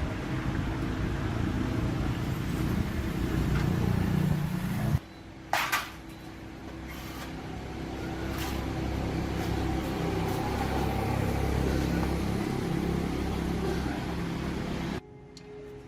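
A motor running steadily, cut off abruptly twice, about five seconds in and again near the end, with a short sharp noise just after the first break.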